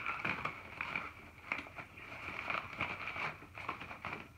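Hands rustling and crinkling the backpack fabric and soft water bags while stuffing them into a mesh side pocket, with scattered light clicks and scrapes.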